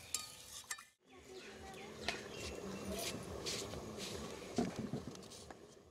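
A metal ladle clinks against the wok while stirring, then stops abruptly at about a second. Quiet outdoor surroundings follow, with faint bird calls and a brief, faint human voice.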